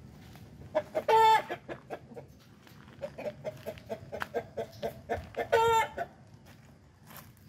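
A chicken carried upside down by its legs gives short, repeated clucks and twice lets out a loud squawk, about a second in and again near the end: the distress calls of a bird being held.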